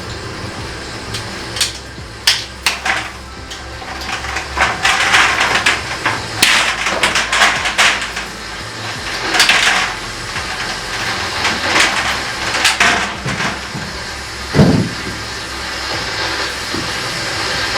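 Irregular clicks, knocks and short scraping bursts as a coil of plastic barrier pipe and tools are handled, with a dull thump near the end.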